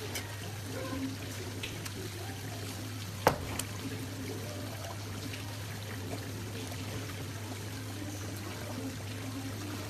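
Water trickling and pouring steadily over a constant low hum, with a few faint clicks and one sharp knock about three seconds in.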